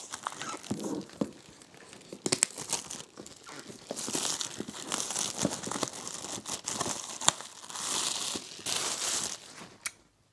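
Thin clear plastic wrap being pulled off a cardboard box and crumpled in the hands: a busy run of crinkles and crackles that dies away near the end.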